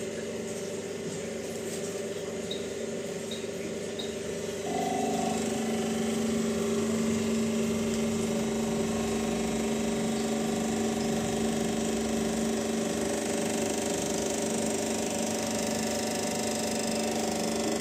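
Concrete compression testing machine's hydraulic pump running with a steady hum, stepping up louder with a stronger tone about five seconds in as the test run begins. Three faint short high beeps come shortly before the step.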